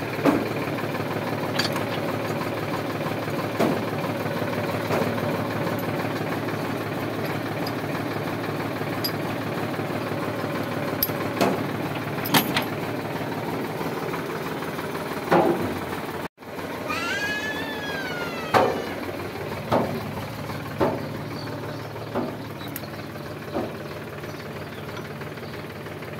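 Tractor diesel engine idling steadily, with sharp metal clanks every few seconds as implement linkage parts and pins are handled.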